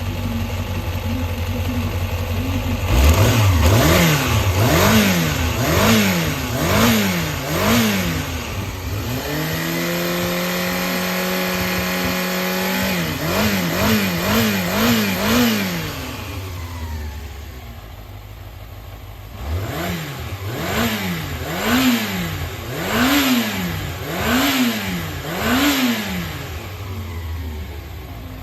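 Yamaha XJR400 (4HM) air-cooled inline-four engine idling and being revved in repeated blips, about one a second. In the middle it holds a steady higher rev for a few seconds, then drops back, blips again and settles to idle. The seller describes it as free of abnormal noises and in excellent running condition.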